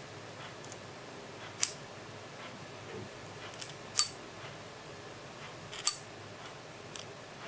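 Leupold Mark 4 AR-15 flat-top mounting bracket being handled: three sharp metallic clicks about two seconds apart, the middle one loudest with a brief ring, and fainter ticks between them.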